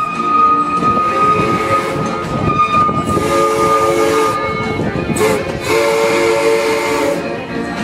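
Steam train whistle blowing over the train's running rumble: a long steady high note that fades about three seconds in, then two lower, chord-like blasts of a second or so each.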